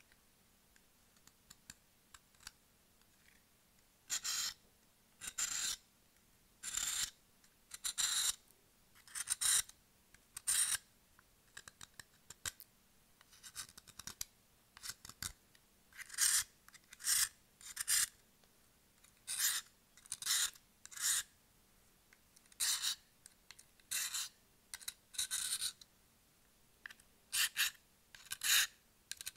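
A blade scraping a stick of chalk in short dry strokes, shaving off chalk dust. The strokes start about four seconds in and come roughly one a second, sometimes in quick pairs, each lasting about half a second.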